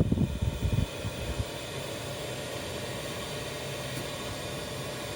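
Diesel parking heater running, its fan blowing warm air with a steady hum as the heater comes up to temperature. Loud irregular low rumbling in the first second and a half, then only the steady hum.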